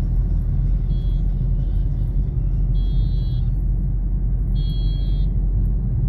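Steady low rumble of a vehicle travelling on a road, with three short high-pitched tones about two seconds apart.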